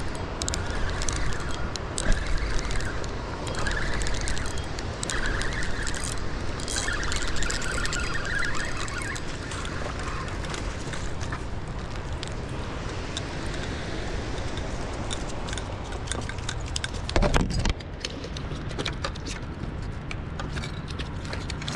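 Steady rushing of river water pouring out below a dam's spillway. A brief knock about seventeen seconds in.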